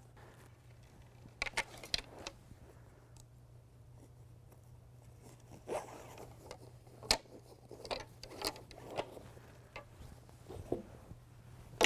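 Coaming pieces of a folding canoe frame being handled and slid into a cotton packing sleeve: scattered short scrapes, rustles and light clicks, over a low steady hum.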